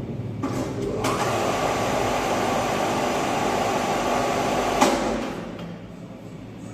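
Electric welding arc on a steel chassis frame, a steady crackling hiss that starts abruptly about a second in and stops with a sharp click a little under four seconds later.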